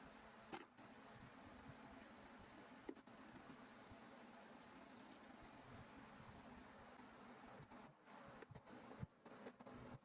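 Near silence: faint room tone with a thin, steady high-pitched whine that fades out near the end, and a few faint clicks.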